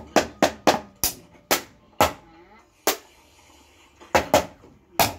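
A thin stick striking a hard surface in a series of sharp, uneven hits. The strokes come quickly at first and then space out. After a pause of about a second there is a quick pair of hits, and one last hit comes near the end.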